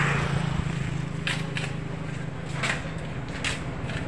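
Road vehicle engine hum with a vehicle just going past at the start, its noise fading away. Five sharp knocks and clatters are scattered through the middle.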